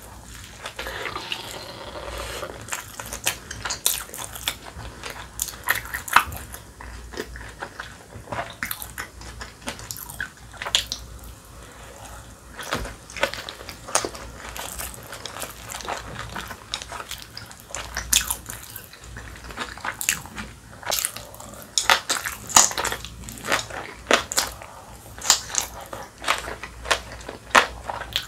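Close-miked eating: a bite into a soft dumpling, then chewing of green-onion kimchi, with many sharp irregular crunches and wet mouth sounds.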